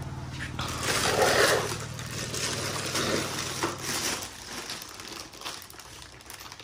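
Clear plastic bags rustling and crinkling as toy trucks in their packaging are handled, over a steady low hum that stops about four seconds in.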